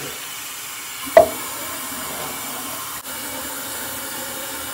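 Tap water running steadily into a bathroom sink, with one sharp knock about a second in.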